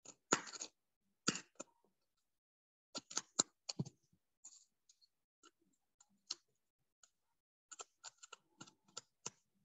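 Scattered light clicks and taps at an irregular pace, with a short crackling rustle right at the start and small clusters of clicks about three seconds in and near the end.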